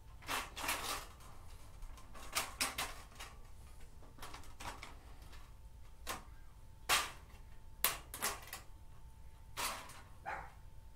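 Thin metal head gasket being worked down over the engine's head studs: irregular scrapes, rattles and light clicks of sheet metal against steel, with two sharper clicks about seven and eight seconds in.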